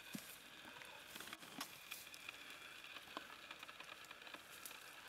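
Faint scattered clicks and rustling from footsteps on forest leaf litter and hands working a tarp's guy line.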